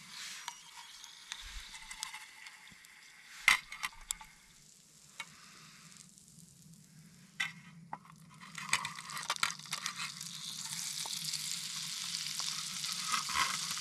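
Food sizzling in a frying pan, growing louder from about eight seconds in, with scattered clicks and knocks.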